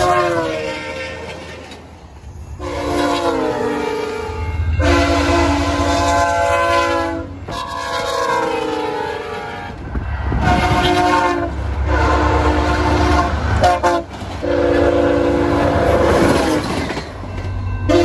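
VIA Rail F40PH-2 diesel locomotives sounding their chord air horns in a series of long and short blasts, several of them falling in pitch as the locomotive passes by. The rumble of the engine and the wheels on the rails runs under the horn.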